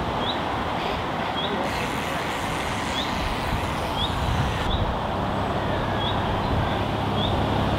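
Steady road traffic rumble from unseen vehicles, with a bird repeating a short, high, slightly rising chirp about once a second.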